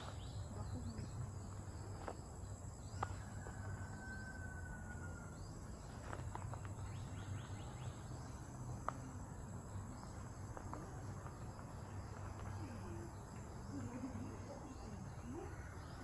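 Forest ambience: a steady high drone of insects such as crickets, with a low rumble underneath. A single drawn-out bird whistle sounds about four seconds in, and a few sharp clicks fall here and there.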